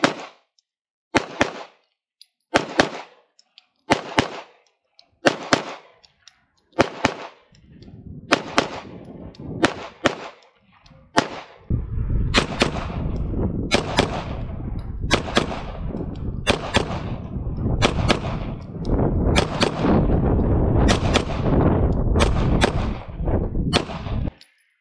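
Shadow Systems DR920 9mm pistol firing a full magazine of 124-grain rounds at a steady pace, a sharp shot about every second and a half. From about halfway through, heavy wind rumble on the microphone runs under the shots.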